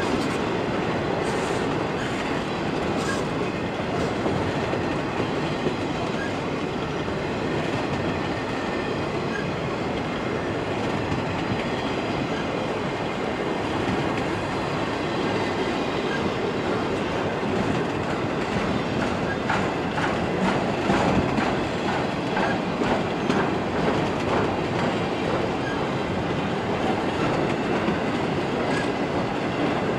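Container freight cars rolling past on steel rails with a steady rumble of wheels on track. About two-thirds of the way through comes a quick run of clicks as the wheels cross rail joints.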